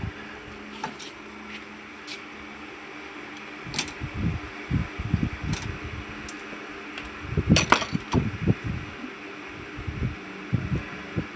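Scattered metallic clicks and knocks from a screwdriver working the screws of a metal amplifier case, the loudest cluster a little past the middle, over the steady whir of a cooling fan.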